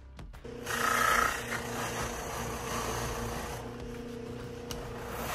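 Bench electric motor with a cotton buffing wheel running with a steady hum, while a Kydex holster is pressed against the wheel, adding a rubbing hiss that is loudest about a second in; the Kydex edges are being buffed smooth.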